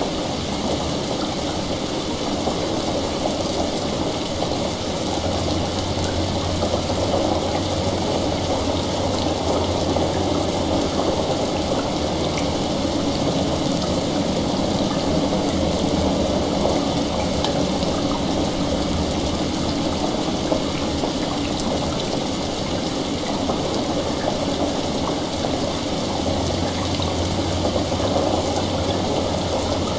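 Ambient mix of steady heavy rain and running water, with faint crackling from a fire. A low hum comes in about five seconds in, drops out a little past the middle, and returns near the end.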